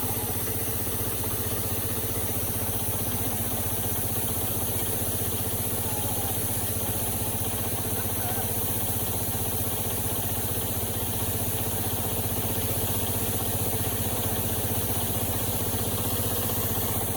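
Heavy construction machine's engine running steadily at an even speed, a constant hum with no revving.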